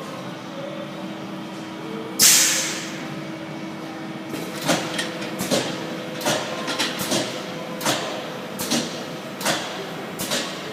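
Welding machine at work over a steady hum: a loud, sudden hiss about two seconds in that fades quickly, then about ten short, sharp hisses and clacks, spaced roughly half a second to a second apart.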